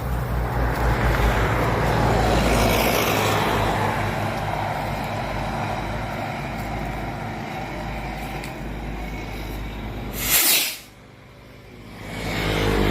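Homemade kwitis firework burning with a steady, loud hiss for about ten seconds that slowly fades, then a short, sharp burst of noise.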